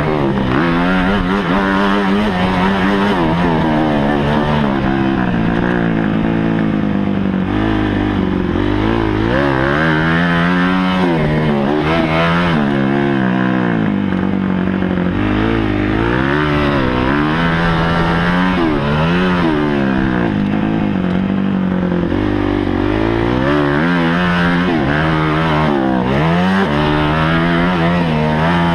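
Kawasaki KX250F dirt bike's single-cylinder four-stroke engine being ridden on a motocross track, heard close up. It revs up and drops back over and over, every second or two, as the rider accelerates and shifts.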